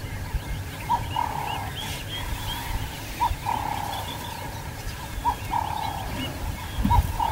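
Wild animal calls in the bush: a short note followed by a longer buzzy one, repeating about every two seconds, with faint higher bird chirps over a low rumble.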